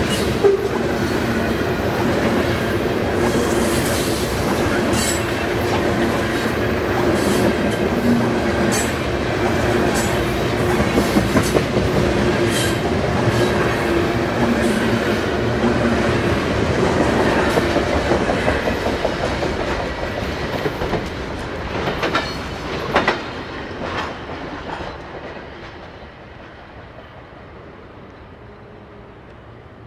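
A train passing close by: a steady rumble of rolling cars with wheels clacking over rail joints, which dies away about 25 seconds in.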